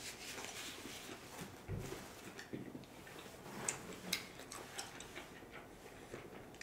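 Soft closed-mouth chewing: faint wet mouth clicks and smacks, a few sharper ones between about two and five seconds in.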